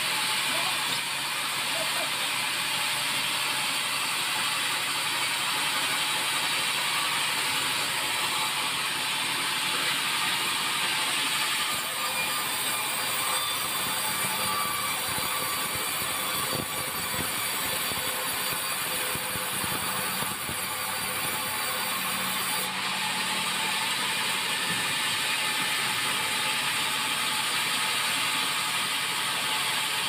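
Sawmill vertical band saw running steadily with a continuous mechanical rattle as white meranti timber is sawn into thick boards.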